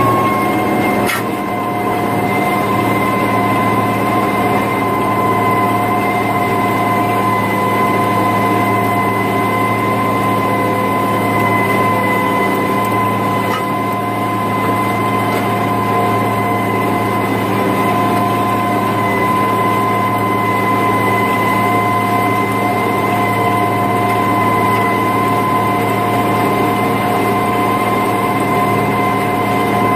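International 3588 2+2 tractor's diesel engine working steadily under load while pulling a disc through corn stubble, heard from inside the cab. A constant high whine sits over the engine drone, and there is a single click about a second in.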